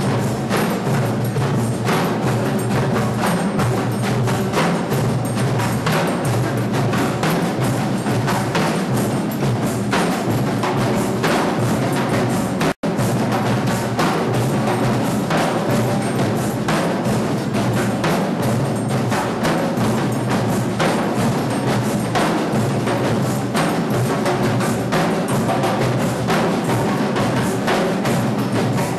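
A percussion ensemble drumming a dense, steady rhythm, with many drums and wood-block-like strokes together. The sound cuts out for an instant about thirteen seconds in.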